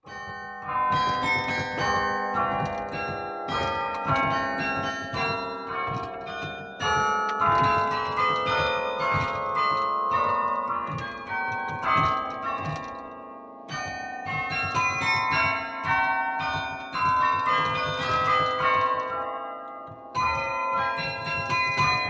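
Carillon bells played as a melody from the baton keyboard: many struck bell notes overlapping in long ringing tones. The phrases break briefly about two-thirds of the way in and again near the end before picking up again.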